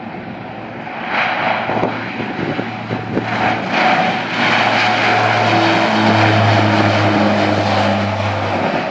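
Small turboprop airliner's engines and propellers on the take-off run: a broad roar that builds to full power, with a steady low propeller hum loudest in the second half that fades out just before the end.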